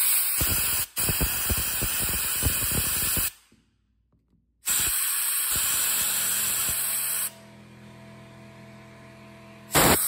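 Compressed air hissing through a Honda CR80 carburetor's jets and passages to clean them out. It comes in blasts: two near the start with a brief break between them, a pause of about a second, a longer blast, a quieter stretch, then a short loud blast at the end.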